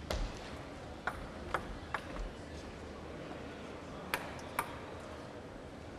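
Celluloid table tennis ball bouncing, six sharp clicks in all: four in the first two seconds and a quick pair a little after four seconds, over a steady hall hum.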